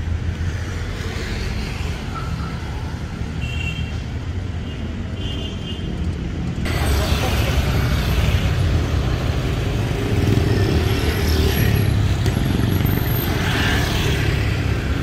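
City street traffic: a steady rumble of cars and motorcycles passing, which jumps louder a little over halfway through as busier traffic takes over.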